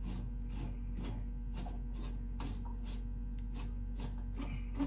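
Bilge pump running: a steady motor hum with an even, light ticking about three times a second, pumping drained water-heater water overboard.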